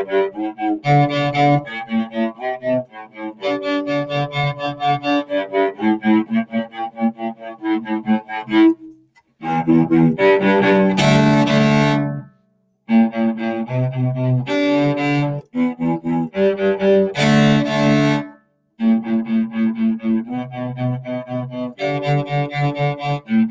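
Solo cello bowed in quick, detached strokes, broken by a few short rests, with two louder held passages about ten and seventeen seconds in.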